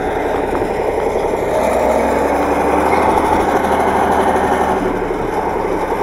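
Diesel engine of a wheeled T-150 tractor running steadily under load as it pulls a harrow and its wheels slip and churn in soft, muddy ground.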